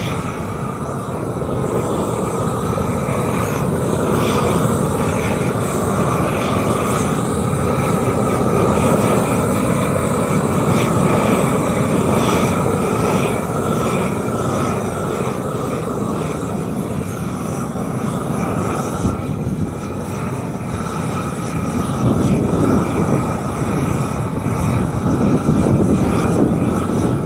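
Loud, steady machine noise during asphalt shaving work, its level slowly rising and falling.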